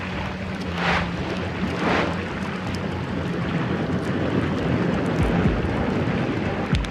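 Muffled underwater rush of churning water over a steady low hum, swelling in two whooshes in the first couple of seconds, with a couple of low thuds in the second half.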